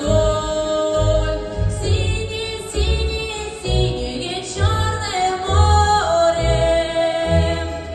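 A female voice singing a melody with held notes over an instrumental backing track with a steady bass beat.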